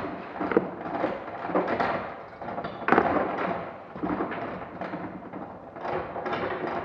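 Rusted anchor chain being pulled up out of a chain locker, its links clanking and rattling in irregular bursts, with one sharper clank about three seconds in.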